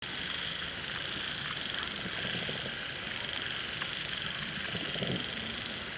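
Steady, high-pitched trilling chorus of calling frogs and insects, with a few faint ticks.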